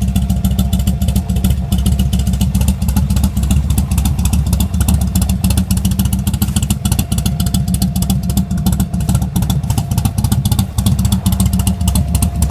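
Buell XB9SX's 984 cc V-twin engine running steadily through an aftermarket D&D exhaust, holding an even idle with no revving.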